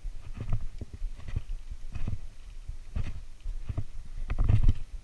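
Irregular low thumps and knocks close to the camera, a few every second, with the heaviest near the end: footsteps along a concrete canal wall and the knocking of handled fishing gear.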